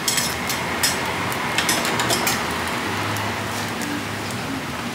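Oil sizzling steadily under egg-and-vegetable pancakes frying on a flat steel griddle, with a few sharp clicks in the first half.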